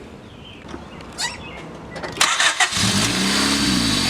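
Honda Civic engine cranked by the starter and catching a little under three seconds in, then running loud with no muffler fitted, its revs rising and falling.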